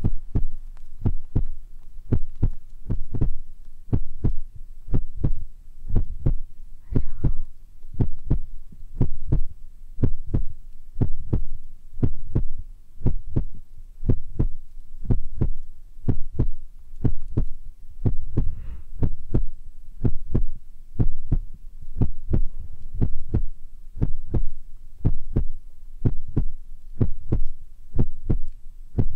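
Ear-massage ASMR on a binaural microphone: hands rubbing and pressing its ears in a steady rhythm give muffled low thumps, about two to three a second.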